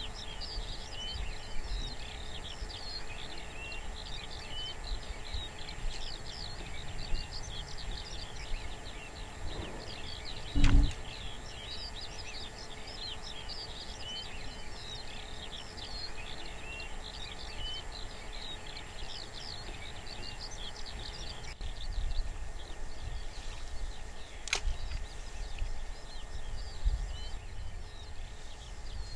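A continuous stream of small birds chirping and singing in open meadow. About a third of the way through there is a brief low thump.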